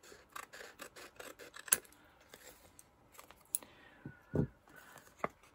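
Scissors cutting through a paper postcard edge: a run of short, crisp snips with a couple of sharper clicks, then a soft knock about four seconds in.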